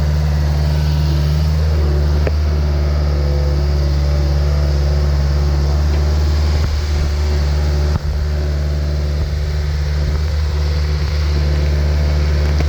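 A Caterpillar 236B skid steer's four-cylinder diesel engine running at a steady idle, with a short bump about eight seconds in.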